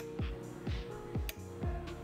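Background electronic music with a steady beat of about two kick-drum thumps a second under held synth notes.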